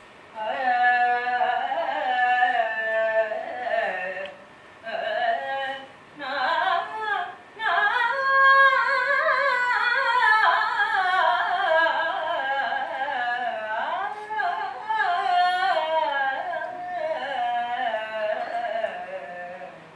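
A solo voice singing a Carnatic-style melody with sliding, ornamented notes, in phrases broken by short pauses about 4, 6 and 7.5 seconds in.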